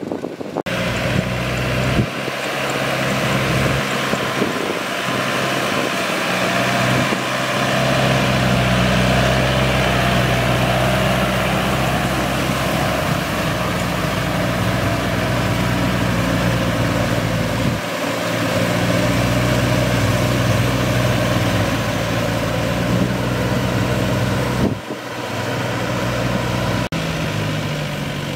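Diesel farm tractor engines running steadily under load while pulling rotary tillers through flooded paddy mud. The engine note breaks off and picks up again a few times.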